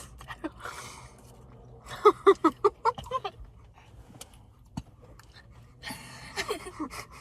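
A person's breathy vocal sounds, with a short run of quick voiced syllables about two to three seconds in.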